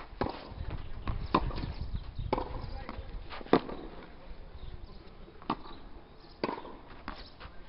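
Tennis ball struck back and forth with rackets in volley practice: sharp pops of the strings on the ball about once a second, the loudest about three and a half seconds in.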